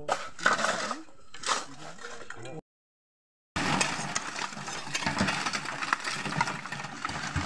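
Several steel shovels scraping and digging into stony red earth, with stones and gravel clattering off the blades. The sound drops out completely for about a second partway through, then the scraping resumes busier and denser.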